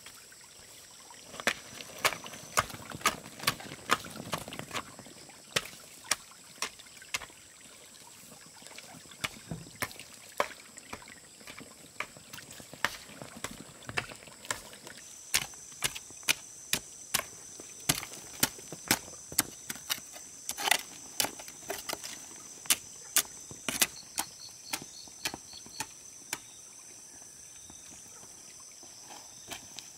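Repeated sharp knocks, irregular and about one or two a second, over a steady thin high-pitched tone.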